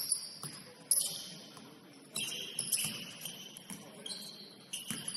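Basketball sneakers squeaking on the gym floor: several short, high squeals one after another as players cut and stop, with a couple of sharp thuds in between.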